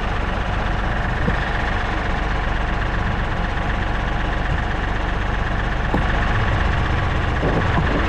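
Kioti compact tractor's diesel engine idling steadily, close to the microphone.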